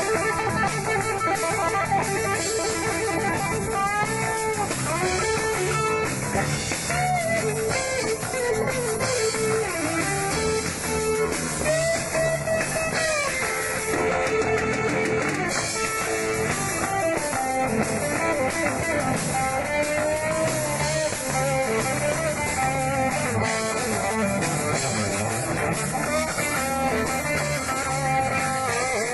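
Live blues-rock band playing: an electric guitar lead with bent notes over bass and drums.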